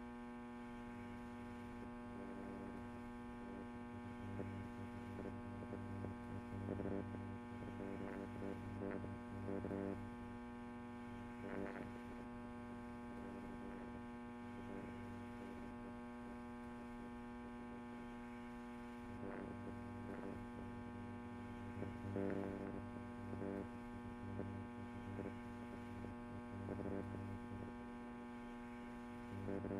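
A steady low hum with many even overtones, swelling a little now and then.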